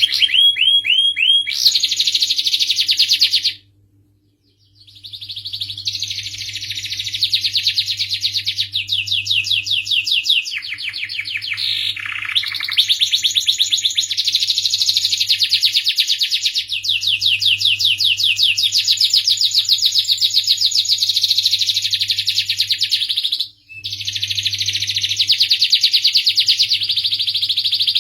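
Domestic canary singing a long, loud song of fast rolling trills and rapid repeated notes. It breaks off for about a second near 4 s and again briefly near 23.5 s.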